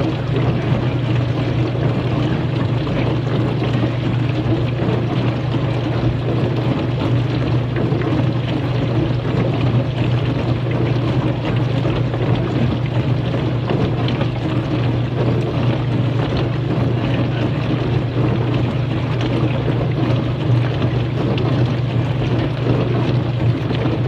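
Kenmore dishwasher running mid-cycle: a steady low motor hum with an even wash of noise over it, unchanging throughout.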